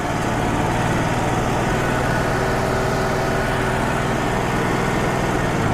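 Wood-Mizer LT35 HD portable band sawmill running steadily on its diesel engine, with a faint whine coming in for a couple of seconds midway.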